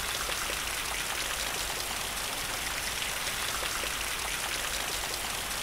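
Steady rain: an even hiss of many small drops, with no change in level.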